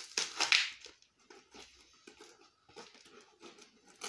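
Plastic packaging crinkling and tearing as a small cardboard box is opened by hand, with a loud rip about half a second in, then soft rustling.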